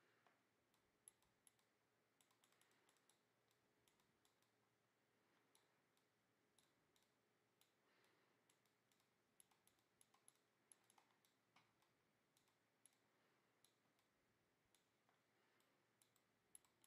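Near silence: room tone with very faint, scattered small clicks.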